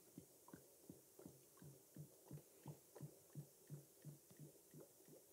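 Faint glugging of thick 2:1 sugar syrup pouring out of a container into a polystyrene hive feeder, about three glugs a second, each falling in pitch.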